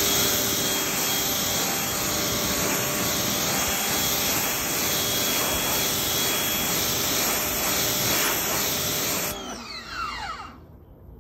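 Greenworks 1600 PSI electric pressure washer spraying through a 40-degree nozzle onto a truck's hood: a loud, steady water hiss over the whine of the electric motor pump. It cuts off about nine seconds in, followed by a brief falling whine.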